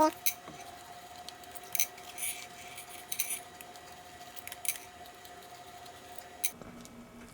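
Allen key turning and lifting out the small bolts of a scooter wheel's beadlock ring: scattered light metallic clicks and ticks, about seven in all, with pauses between them.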